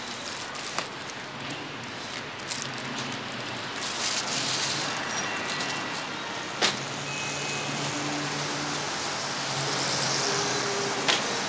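Street traffic noise: cars and engines running by in a steady hum, with a few short sharp knocks, the loudest about two-thirds of the way through.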